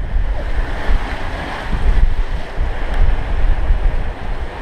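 Strong wind buffeting the microphone in a gusty, low rumble, over the rush of wind and rough seas around a sailboat.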